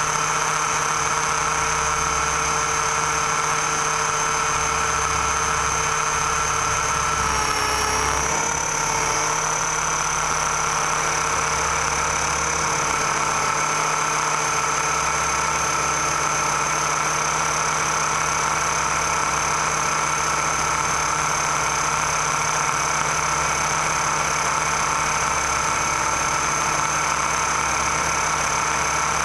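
Electric motor and propeller of a battery-powered radio-controlled model airplane running with a steady whine; the pitch dips briefly and comes back about eight seconds in, as the throttle is eased and reopened.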